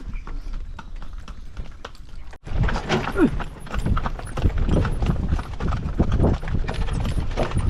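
A carriage horse's hooves clip-clopping on the road as it pulls a kalesa. The sound breaks off sharply about two and a half seconds in and resumes louder.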